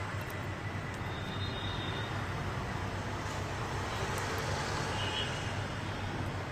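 Steady low background hum with an even hiss, with no speech.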